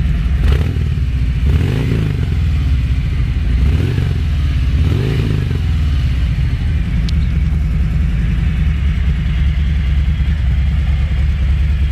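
Big motorcycle engine idling through an aftermarket-style exhaust, with a few short throttle blips in the first five seconds, then settling back to a steady idle.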